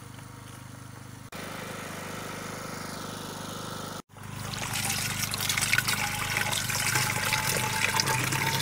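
Pumped water running from a hose and pouring into a container, over a steady low hum. After a brief break about four seconds in, the rush of water is much louder.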